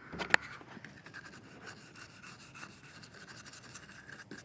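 Faint rubbing and scratching from hands handling the air conditioner, with one sharp click shortly after the start.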